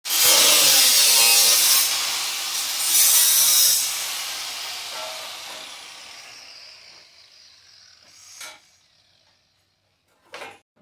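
Angle grinder working sheet steel in two loud stretches over the first four seconds, then fading away as the disc winds down. Two short knocks of metal being handled follow near the end.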